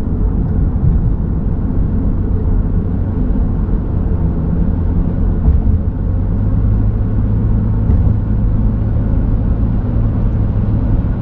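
Steady low drone inside the cab of a 2007 Honda Ridgeline at highway speed: its 3.5-litre V6 engine with tyre and road noise, running evenly with no distinct knocks or events.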